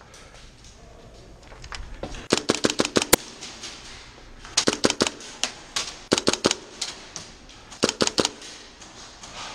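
Airsoft guns firing in short rapid bursts of sharp cracks, about five bursts, the first a little after two seconds in and the longest holding roughly eight shots.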